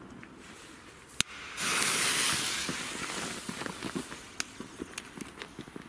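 A sharp click, then a burst of loud hissing that starts abruptly and fades over a couple of seconds, as a lit firecracker fuse sputters; after it, footsteps crunching on gravel.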